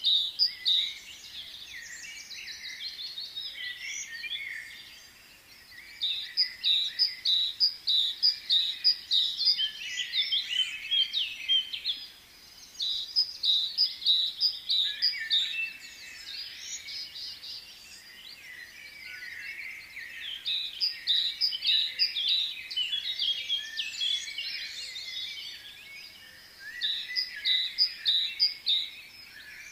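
A chorus of small birds chirping and twittering, with loud bouts of rapid, repeated high notes every several seconds and quieter chatter in between.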